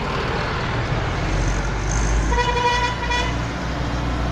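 Diesel dump truck rumbling past with its engine running, and a truck horn sounding once for about a second, a little over two seconds in.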